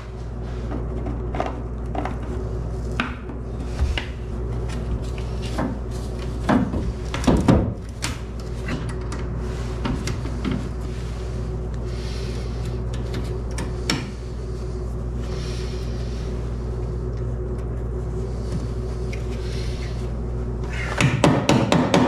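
Plastic tail light housing and plastic push plugs being handled and pressed into place on a pickup bed pillar: scattered small clicks and knocks, with a cluster of stronger knocks a few seconds in, over a steady low hum.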